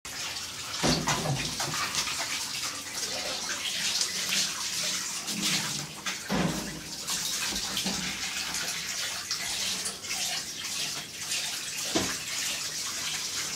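A steady rushing, water-like noise, with three dull thumps spaced about five to six seconds apart.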